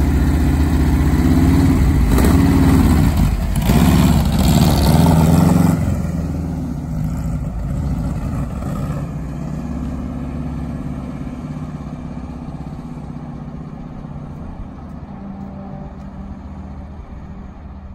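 1970 Volkswagen bus's air-cooled flat-four engine revving up, rising in pitch a few times, as the bus pulls away, then fading steadily as it drives off down the street.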